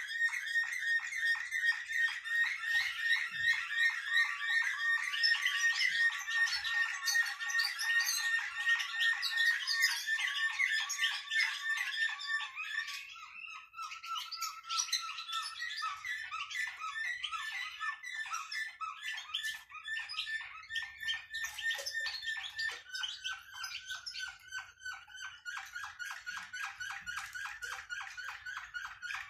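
Caged songbird singing a long, fast trill of rapidly repeated whistled notes. About halfway through the song drops to a lower-pitched, quieter repeated phrase and keeps going.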